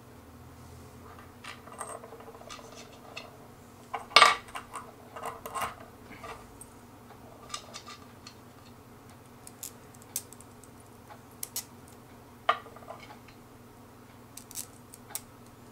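Small metal assembly hardware clicking and clinking as pieces are handled and fitted onto bolts, with scattered light taps and a louder cluster of clinks about four seconds in.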